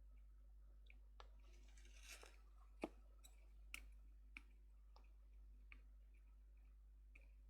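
Near silence over a steady low hum, broken by a few faint clicks and taps from soldering work on a keyboard power jack; the sharpest click comes about three seconds in, with two more about a second later.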